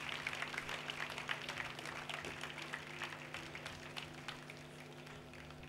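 Audience applause from a large outdoor crowd, many scattered claps that thin out and fade away toward the end.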